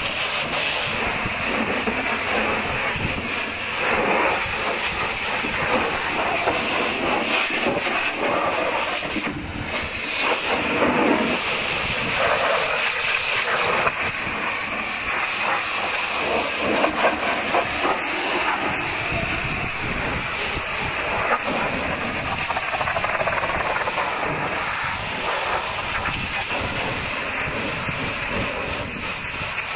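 High-pressure washer jet spraying a truck's tyres, wheel rims and mudguards and then the side of the tipper body: a steady, loud hiss of water that shifts a little in loudness and tone as the lance moves across the surfaces.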